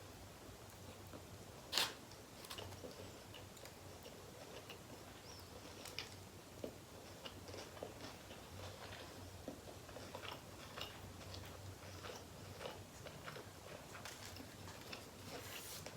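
A person chewing and biting food (tacos) close to the microphone, with small wet mouth clicks scattered throughout. One louder, sharp click comes about two seconds in.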